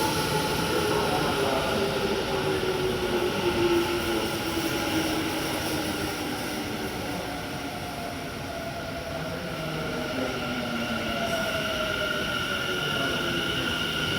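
Electric train running along the rails, its motor whine falling in pitch over the first several seconds as it slows. Near the end a higher whine rises over the rail rumble.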